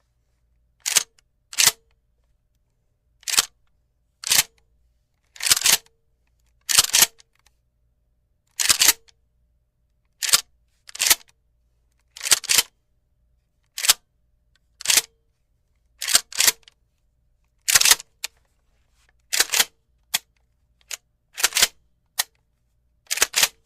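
Shotgun sound effect: a string of about twenty short, sharp clacks, many in close pairs, with silence between them.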